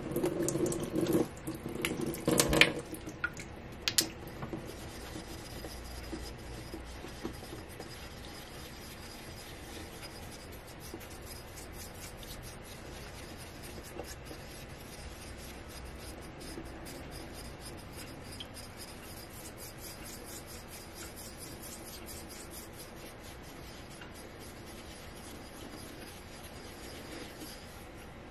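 A few splashes and knocks of water and stone at a sink in the first four seconds, then a small stone rubbed rapidly back and forth across a wet whetstone, a steady fine grinding scrape, working up slurry on the stone's face.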